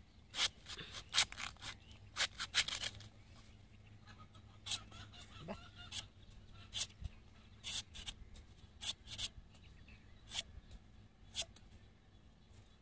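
Curved sickle blade chopping into tender palmyra fruits: a quick run of sharp cuts in the first three seconds, then single cuts about a second apart.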